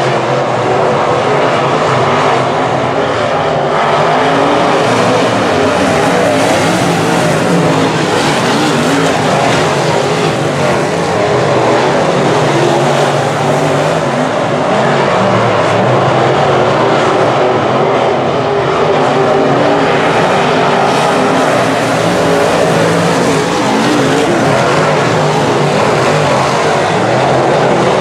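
Semi-late model dirt race cars with V8 engines running at racing speed around a dirt oval, loud and continuous.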